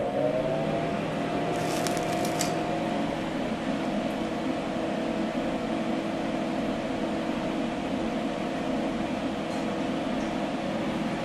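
Altair 8800 computer running, its cooling fan and power supply giving a steady hum of several tones. A few faint clicks come about two seconds in.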